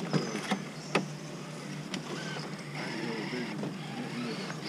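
Electric motor whine of a radio-controlled scale crawler truck creeping over rocks, with three sharp knocks in the first second. Faint voices talk behind it.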